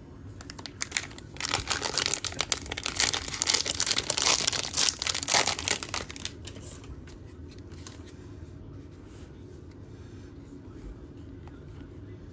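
Plastic wrapper of a trading-card pack being torn open and crinkled in the hands, a dense crackling for about six seconds, then only faint handling ticks.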